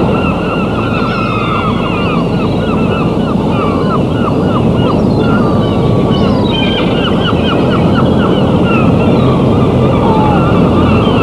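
Steady rush of churning sea water from a ferry's propeller wash, with many gulls calling over it in quick, repeated cries.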